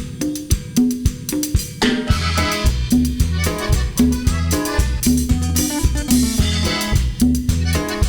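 Cumbia tejana instrumental intro: a steady drum beat with a repeating low note, and bass and fuller chords joining about two seconds in.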